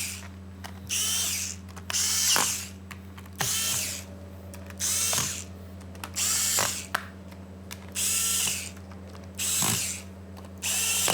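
Small electric screwdriver tightening laptop bottom-cover screws, running in short whirring bursts about every second and a half, about nine in all, the whine rising in pitch as each burst spins up.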